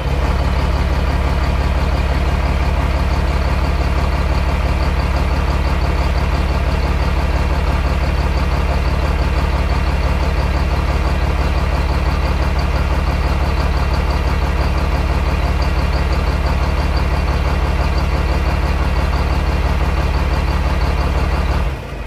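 A large engine running steadily at one constant speed, with a low hum and no change in pitch or load.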